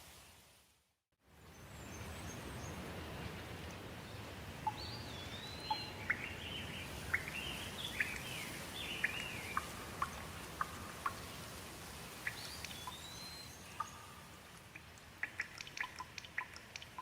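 Steady rain hiss with birds singing over it, whistled rising-and-falling calls and short chirps. About a second in, the sound cuts out completely for a moment. Near the end the hiss eases and quick, sharp water drips take over.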